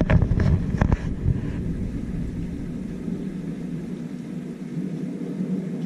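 Thunderstorm with steady rain noise and a low rumble. Several sharp knocks fall in the first second and a half.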